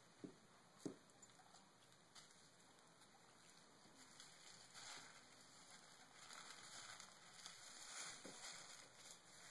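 Near silence: faint room tone with a couple of soft taps in the first second and a faint rustle later on.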